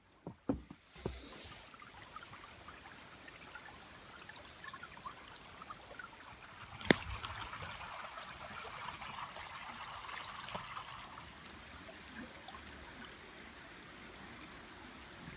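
A small creek flowing steadily. There are a few short knocks in the first second and one sharp click about seven seconds in.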